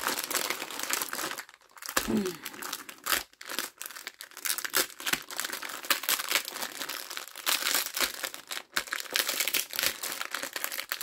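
Plastic magazine bags crinkling and rustling as they are handled and shifted on a table: an irregular run of crackles with a short lull about a second and a half in.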